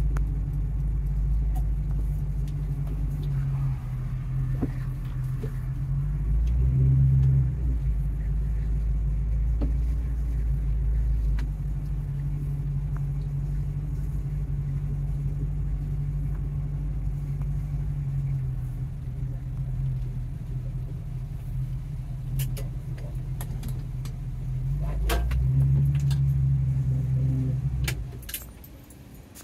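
1969 Ford Mustang's engine and exhaust running while driving, a steady low rumble heard from inside the cabin. It swells louder twice, about a quarter of the way in and again near the end, then drops away just before the end.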